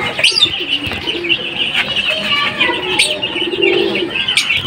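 Domestic pigeons cooing, a low warbling coo that is strongest near the end, over a constant high twittering of small birds.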